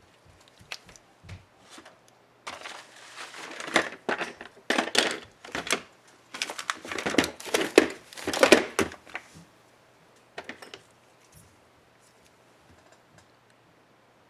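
Hands fitting a laptop keycap: a few light plastic clicks, then about seven seconds of crinkling and scraping in short bursts, then a couple more clicks.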